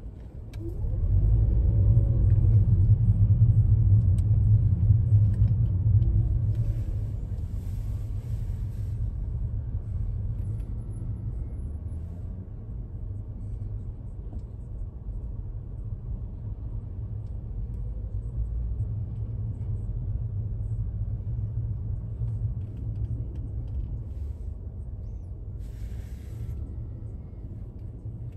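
Car driving on the road: a steady low engine and road rumble that swells about a second in and eases back after several seconds.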